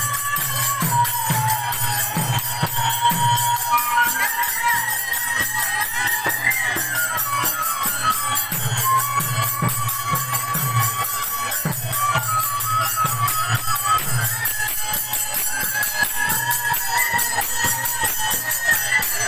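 Bengali kirtan music: a drum beats a steady rhythm under jingling hand cymbals and a high melody that glides between notes.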